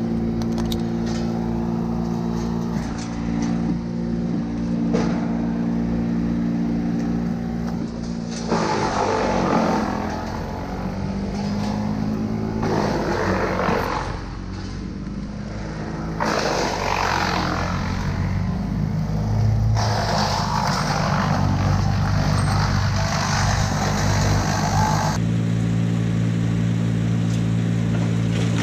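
Chainsaw idling, then revving up and cutting wood for about sixteen seconds, its pitch rising and falling under load as the felling notch is cut, then dropping back to idle near the end.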